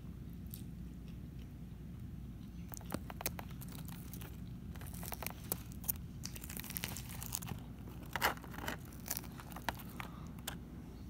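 A fork digging through crisp lettuce and noodles in a clear plastic salad container: a run of crunching, crinkling clicks that starts about three seconds in and is loudest about eight seconds in.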